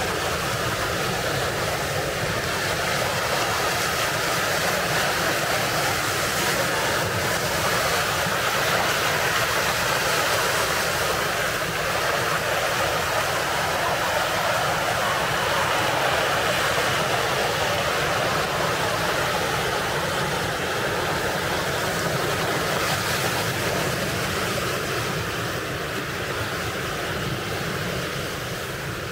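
Ocean surf washing steadily on the shore, easing off slightly near the end.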